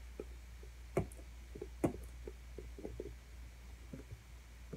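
Scattered soft clicks and handling knocks, the two loudest about a second and two seconds in, as a small boxed light's packaging is handled and tugged at in an attempt to open it.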